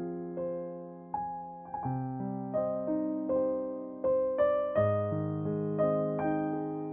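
Soft background piano music: gentle notes and chords, each struck and then fading.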